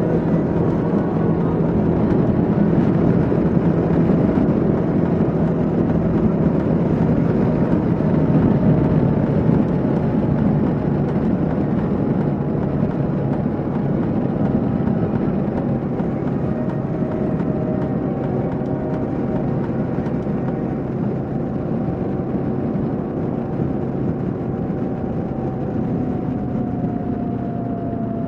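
Kawasaki KLR 650's single-cylinder engine running steadily at highway cruising speed, under a steady rush of wind noise. Near the end the engine note drops gradually as the bike slows.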